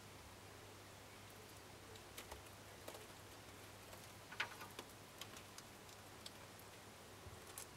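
Faint, scattered clicks and ticks from a pair of gray short-tailed opossums, irregularly spaced, the loudest about halfway through.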